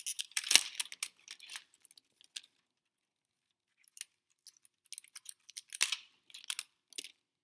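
Clear tape being peeled off the plastic underside of a die-cast model car: scattered crackling and small sharp clicks, loudest about half a second in, with another burst near six seconds.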